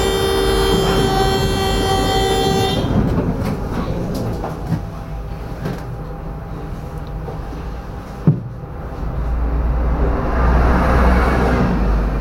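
A tram's steady electronic warning tone, several notes stacked, sounds for about three seconds: the door-closing signal. Then the tram hums at a standstill, with a single sharp knock about eight seconds in, and a city bus's engine swells as it pulls past close by near the end.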